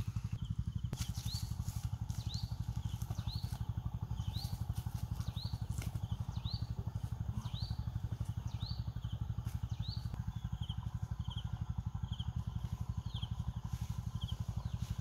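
A motor running steadily with an even low thudding, while a bird repeats a short rising chirp about once a second, switching to quicker, shorter chirps in the last few seconds.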